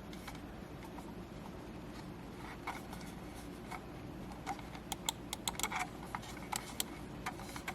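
Light plastic clicks and taps from handling a lightweight wireless gaming mouse, scattered and irregular through the second half, over a steady low background hum.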